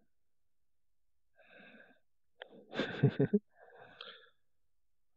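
A man breathing close to the microphone, three breaths about a second apart. The middle breath is much the loudest, opening with a sharp click and mixed with rustling and low bumps.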